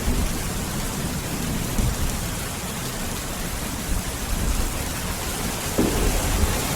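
Steady rain, with a low rumble of thunder underneath.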